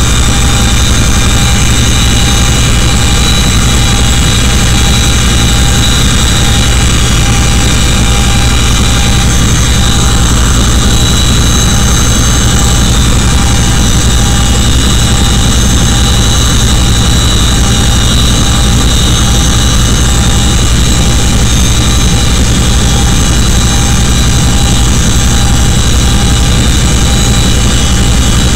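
Loud, steady cabin noise of a CH-47 Chinook helicopter: a constant low drone from the rotors and engines with several steady high-pitched whining tones over it.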